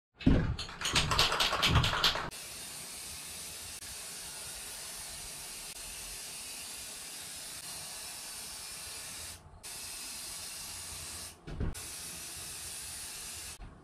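Aerosol spray-paint can hissing in long steady blasts as primer is sprayed on, with two short pauses near the end. A louder rhythmic clatter fills the first two seconds, and a dull knock falls in the second pause.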